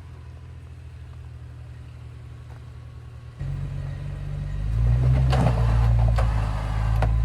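Jeep engine crawling at low throttle up a rock ledge under a spotter's guidance. It picks up about three and a half seconds in and again near five seconds as the driver gives it more throttle.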